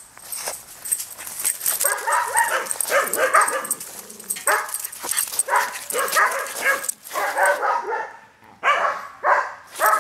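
Rat terrier barking and yipping excitedly in repeated high-pitched bursts, with rustling and scuffing steps in dry leaves under them.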